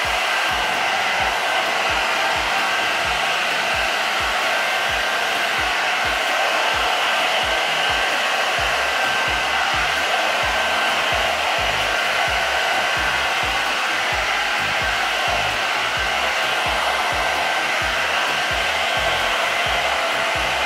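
Round hot-air brush (dryer brush) running steadily, a constant rush of blown air with a faint high whine, as it dries a freshly dyed, wet strand of hair.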